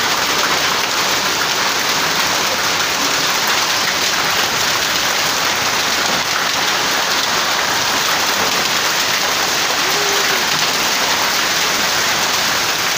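Rain and hail beating steadily on corrugated metal roofing during a hailstorm: a dense, even, loud downpour that holds level and never lets up.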